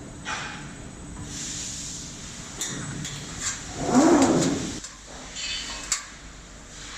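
Press brake machine noise: scattered clicks and knocks, with a louder surge of hiss and a low hum lasting under a second about four seconds in.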